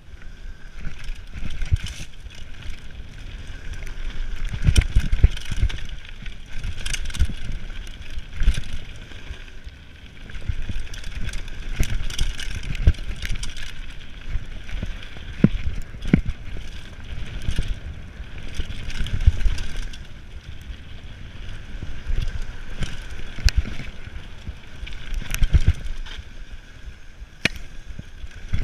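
Mountain bike ridden fast downhill on a dirt trail: steady tyre rumble and wind noise on the microphone, broken by frequent irregular knocks and rattles as the bike hits bumps.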